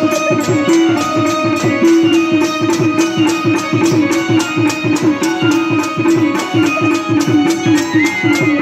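Adivasi folk dance music: a fast, steady drumbeat under a held melody, with a warbling high line entering near the end.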